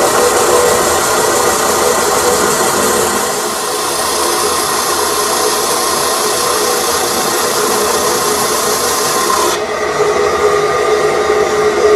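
Lathe machining a metal shaft: a steady, noisy cutting and scraping sound of the tool on the turning work. Near the end the high hiss cuts off abruptly, leaving a steady hum.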